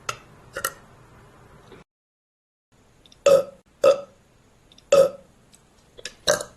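A young woman burping: about six short burps in a row. The first two are softer; after a brief gap of silence about two seconds in, four louder ones follow.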